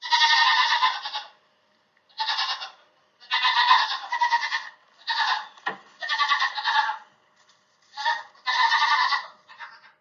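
A baby goat (kid) bleating repeatedly in high-pitched calls, about eight bleats of varying length with short pauses between them.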